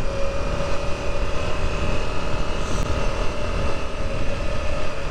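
Off-road motorcycle engine running steadily while riding, with a held engine note and heavy wind and road rumble on the camera microphone.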